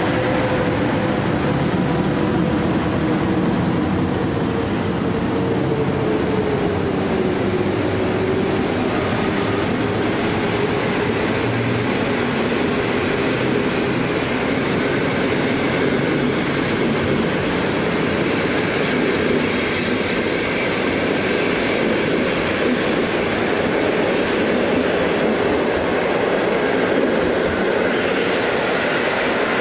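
Passenger coaches of a departing train hauled by a PKP EP09 electric locomotive rolling past and picking up speed, a steady rumble of wheels on the rails. A faint hum from the electric locomotive sinks a little in pitch over the first eight seconds as it pulls away.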